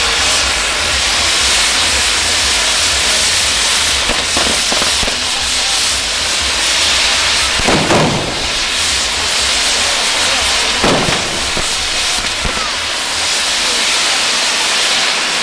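Ground fireworks burning with a steady loud hiss, with two short louder flares about eight and eleven seconds in.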